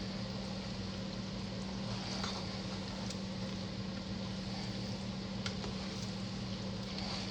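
Steady low motor hum under a soft hiss, with a few faint light clicks.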